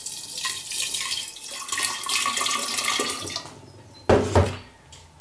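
Warm water poured from a stainless-steel electric kettle into a large glass jar, splashing steadily for about three seconds, to rinse the leftover honey from the jar. A short knock follows about four seconds in, as the kettle is set down.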